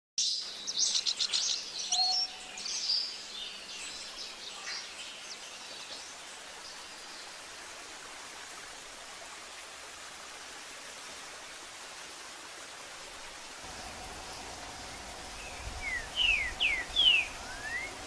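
Bird song: a flurry of high chirps and calls for the first few seconds, then steady hiss. Near the end a green-winged saltator (trinca-ferro) gives a short phrase of sharp, sliding whistles.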